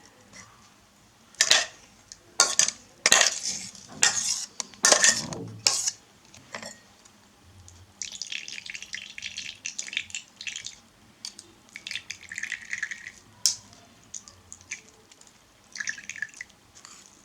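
Kitchen utensils clinking against dishes, about six sharp knocks in the first few seconds, then a stretch of irregular scraping and liquid sounds as onion juice is extracted into a glass or bowl.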